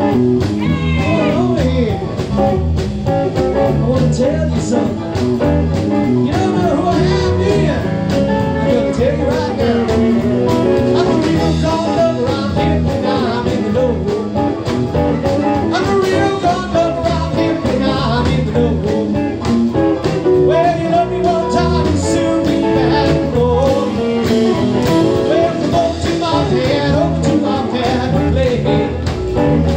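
A live band playing an uptempo rhythm-and-blues number on electric guitar, bass and drums, with a man singing into a microphone.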